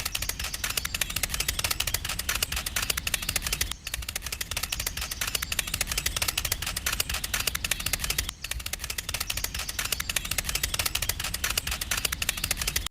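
Small geared motor of a miniature model machine running, a fast, steady rattle of clicks, with two brief breaks about four and eight and a half seconds in.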